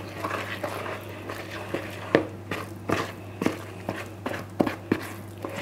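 Almond-flour tart dough being worked in a mixing bowl: irregular soft knocks and squishes, about a dozen, over a low steady hum.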